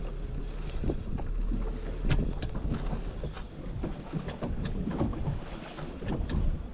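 Wind buffeting the microphone and water lapping against a boat hull, a steady low rumble with scattered sharp clicks and knocks, the loudest about two seconds in.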